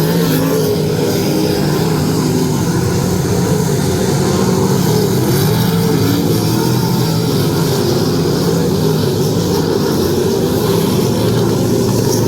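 Sprint car engines running at race speed, a loud steady drone with little change in pitch.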